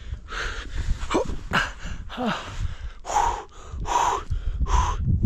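A person panting hard: a quick run of heavy, noisy breaths, some with a short voiced gasp, spacing out to about one a second near the end. This is breathlessness from exertion in the thin air at high altitude.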